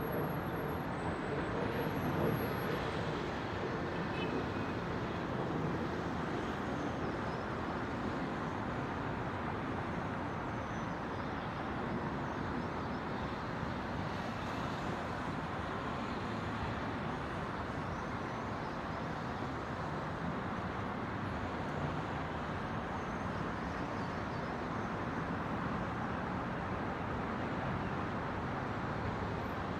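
Steady city ambience: a continuous hum of distant road traffic across a large city.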